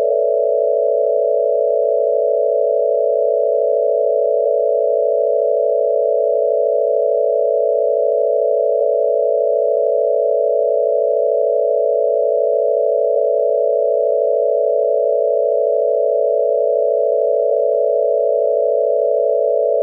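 VHS noise sound effect: a loud, steady drone of a few close tones. A faint tick recurs about every four and a half seconds, where the loop repeats.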